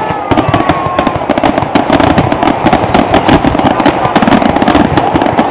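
Aerial fireworks: a loud, unbroken barrage of shell bursts and crackling stars, many sharp pops every second.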